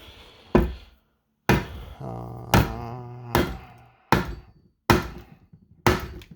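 About seven sharp metal-on-metal taps, roughly one a second, as a part is driven onto a shaft during reassembly of a 1960 Ford three-speed transmission, working against friction.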